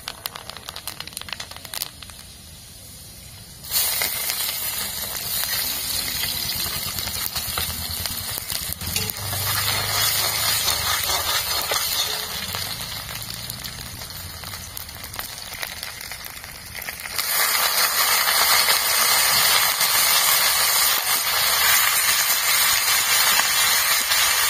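Hot oil in an iron wok crackling lightly as spices are dropped in. About four seconds in it breaks into a loud sizzle as chopped onion goes in and is stirred with a steel ladle. About seventeen seconds in the sizzle grows louder still as raw chicken pieces are added.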